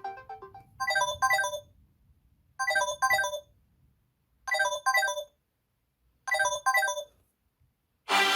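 Samsung Galaxy S10 ringtone: a short double ring of bright chime-like tones, repeated four times about every two seconds with silence between. Another ringtone's melody fades out at the start, and a new one begins near the end.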